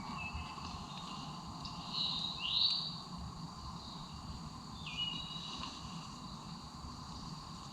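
Outdoor ambience of birds and insects: a steady high insect drone, with one rising bird call about two and a half seconds in and a falling call near five seconds.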